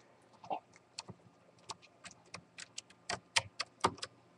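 Small Phillips screwdriver backing out a tiny screw from a laptop screen's metal mounting bracket: a run of light, irregular clicks, getting louder and quicker near the end.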